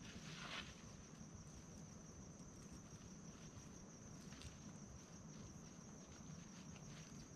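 Faint, steady high-pitched insect chorus. A soft scuff about half a second in, from handling on the ground.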